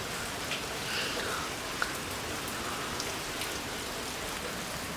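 Steady rain falling on surfaces, an even hiss with a few faint drip ticks scattered through it.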